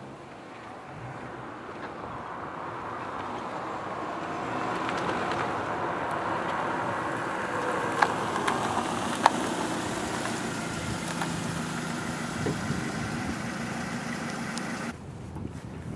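Dodge Neon sedan's engine running as the car drives up and pulls in, growing louder over the first few seconds and then holding steady. Two sharp clicks come about eight and nine seconds in, and the sound cuts off suddenly near the end.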